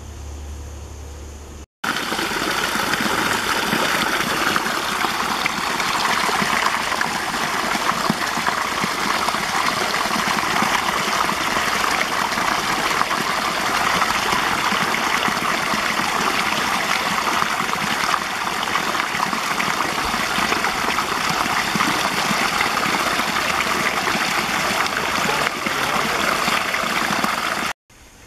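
Creek water rushing and splashing over rocks close by, a steady loud rush that starts abruptly about two seconds in, after a quieter low hum, and cuts off just before the end.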